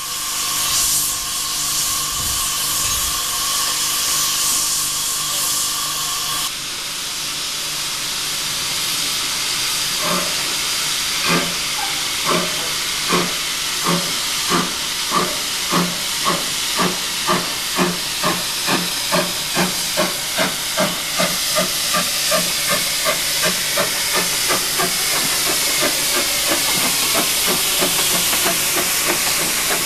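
Stroudley LB&SCR 'Terrier' 0-6-0 tank locomotive Fenchurch, in A1 Class form, with steam hissing loudly and a steady held note in it for the first few seconds. From about ten seconds in, its exhaust beats as it pulls away, starting at about one beat a second and quickening to about three a second until the beats blend into a steady hiss of steam.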